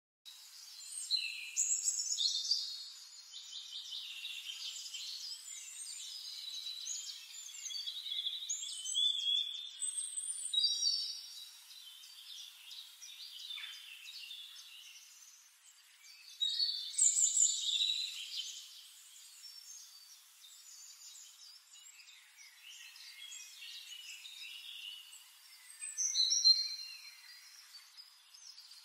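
Several songbirds singing and chirping together, a dense run of short high phrases and whistles, with louder bursts about two seconds in, just past the middle and near the end.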